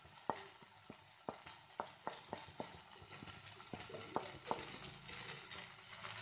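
Faint sizzling of an onion-tomato masala frying in a pan. Ground spices are tipped and scraped off a plate into it, with a string of light irregular clicks and taps, about two or three a second.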